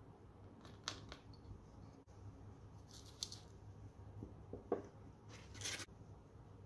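Small kitchen handling sounds while seasoning a marinade. A click about a second in, then a short dry sprinkling hiss of salt falling into the bowl. A light knock follows, then another short rustling hiss near the end.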